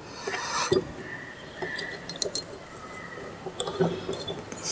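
Light metallic clinks of small steel parts being handled and fitted: a washer and nut picked up off a wooden bench and a steel crank arm slid onto its shaft. A few short, sharp ticks spaced out over several seconds.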